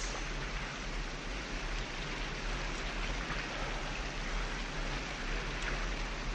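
Steady rushing water, an even hiss with a low hum underneath, as in the waterworks pump house where the scene is set.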